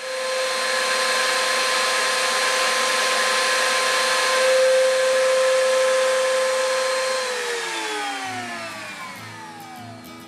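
Woodworking router motor running at a steady high speed, a high whine over a rushing noise, then switched off about seven seconds in and spinning down with a steadily falling pitch.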